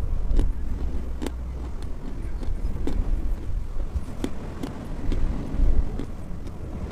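Dry chalk being chewed with the mouth closed: sharp crunches roughly once a second over a low background rumble.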